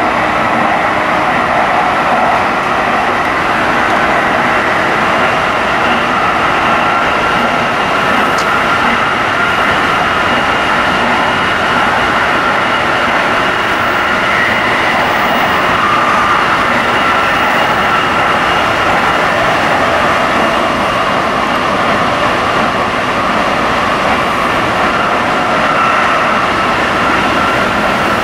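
Tsukuba Express commuter train running at speed, heard from inside the carriage: a steady rush and rumble of wheels on rail, with a faint steady whine over it.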